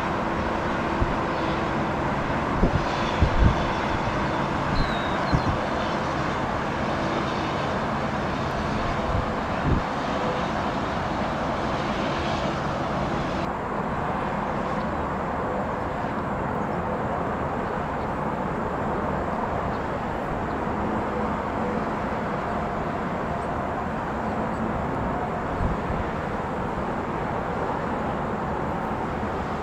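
Steady jet-aircraft engine noise at an airport, with a few faint steady tones and a few short thumps in the first seconds. About 13 seconds in the sound changes abruptly, the high hiss dropping away.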